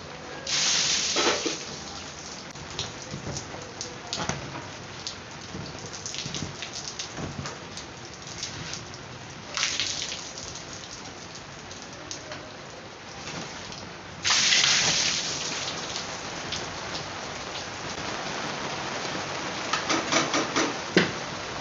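Rain falling steadily on a rooftop, an even hiss full of small drop clicks, swelling loudly a few times as the downpour gusts, most strongly around fourteen seconds in.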